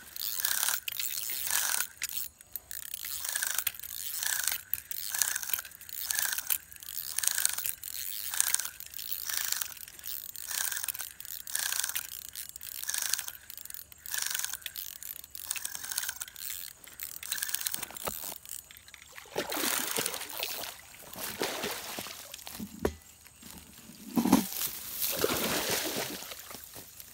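Spinning reel being cranked in steady turns, about one and a half a second, as a hooked catfish is reeled in. From about nineteen seconds the cranking gives way to water splashing and sloshing, with one loud splash near twenty-four seconds, as the fish thrashes at the bank.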